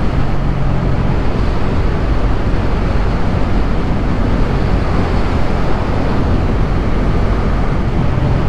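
Bajaj Dominar 400's single-cylinder engine running steadily at high speed, under heavy wind rush.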